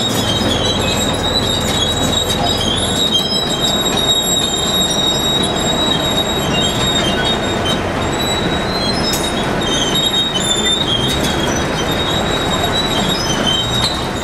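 Steel wheels squealing against the rails: a loud, steady high screech with wavering tones as a rail-mounted cleanup machine moves along the track. Under it a low rumble eases off about three seconds in.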